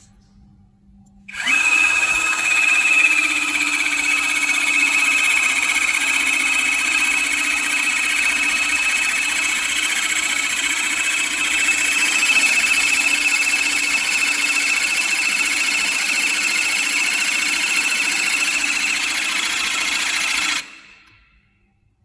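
Battery-powered hydraulic crimping tool's electric motor and pump running steadily with a high whine as the ram advances and the pressure builds. It starts about a second in and cuts off abruptly near the end.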